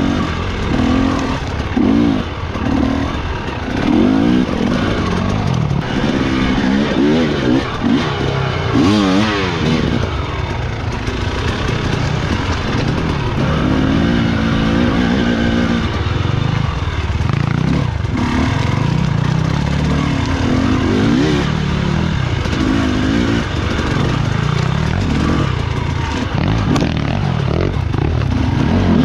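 Enduro dirt bike engine being ridden hard, revving up and down again and again, its pitch rising and falling every second or two.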